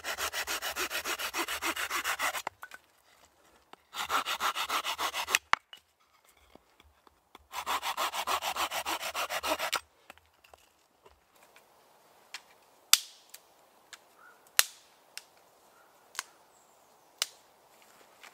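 A hand saw cutting through a branch in fast back-and-forth strokes, in three bursts with short pauses between them. After the sawing stops come a few sharp, separate knocks.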